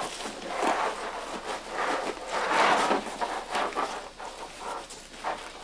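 Zipper joining a Snowpulse removable airbag to its backpack being pulled closed in several short, uneven pulls.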